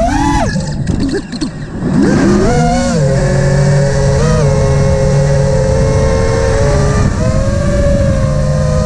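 FPV quadcopter's motors and propellers whining as heard from the onboard camera, pitch following the throttle: a sharp rise and a brief drop about a second in, then a steadier whine with small swells, over low wind rumble.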